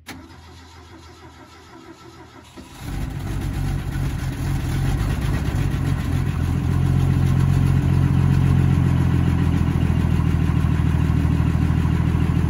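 1966 Ford F350's engine being cranked by the starter for about two and a half seconds. It then catches and runs, growing louder over the next few seconds and then holding a steady idle.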